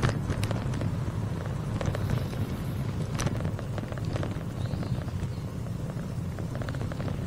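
Low, steady rumble of wind on the microphone while a bicycle coasts downhill, with scattered light clicks and rattles.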